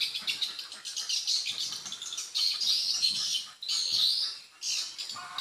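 Dense, rapid twittering chirps of edible-nest swiftlets, a swiftlet call-sound track of the kind played from a swiftlet house to lure the birds in to nest. The chirping runs on with only brief dips.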